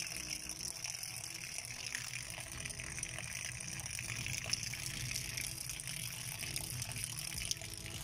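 Water gushing in a steady stream from a roof water tank's overflow pipe and splashing onto the ground below: the tank is overflowing.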